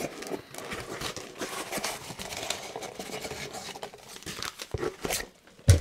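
Hands rummaging through paper packing material in a cardboard box: continuous crinkling and rustling, with one sharp knock near the end.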